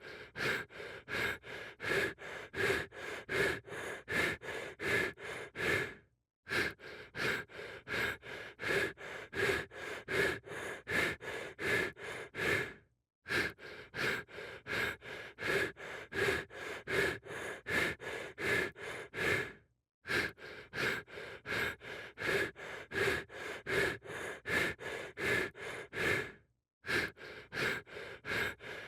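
Rapid rhythmic panting breaths, about two and a half a second, a stock sound effect that loops every six and a half seconds with a brief silent gap between repeats.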